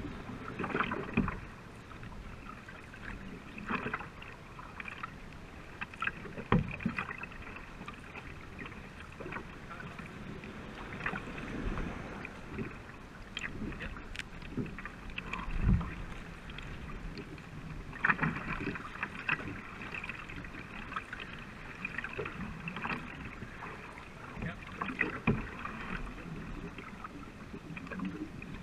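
Racing canoe paddling: paddle blades splashing into the river and pulling through the water at an easy, irregular pace, over the steady wash of water along the hull. Sharp knocks stand out now and then.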